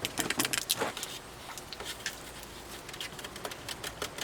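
Baking soda being shaken out of its box into a cup of water: a quick patter of small taps, densest in the first second, then scattered ticks.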